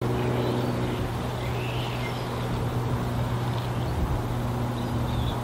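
Steady low drone of a Cessna T206 Stationair's piston engine and propeller flying high overhead, with a few faint bird chirps now and then.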